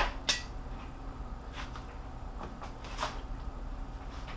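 Breaker bar and socket turning a 3.7L V6 cylinder head bolt through its final angle-tightening step. There is one sharp click with a brief ring about a quarter second in, then a few fainter clicks and ticks.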